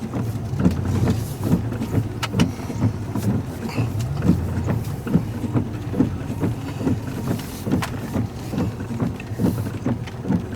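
Inside a vehicle cabin: a steady low engine and road rumble, broken by frequent knocks and jolts about twice a second, typical of driving over a rough, muddy road.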